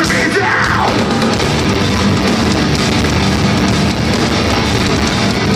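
Metalcore band playing live and loud: distorted electric guitars and pounding drums, recorded on a phone close in the crowd.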